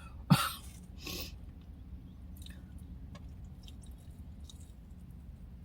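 Close-miked mouth sounds of someone eating: a sharp click and two short noisy bursts in the first second and a half, then faint, soft chewing.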